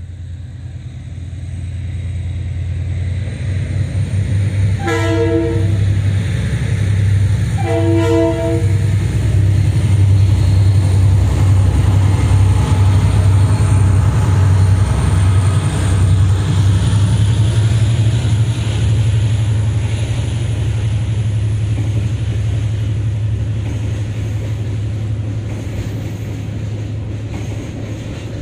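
Freight train led by two KiwiRail DFB-class diesel-electric locomotives approaching and passing, with the engine drone growing louder. The horn sounds twice, once about five seconds in and again about three seconds later. Then the container wagons roll past with steady rail noise.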